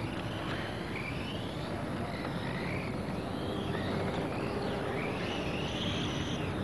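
Radio-controlled racing cars' motors whining as they run past, the pitch rising and falling again and again as they accelerate and brake, loudest near the end. A steady low rumble runs underneath.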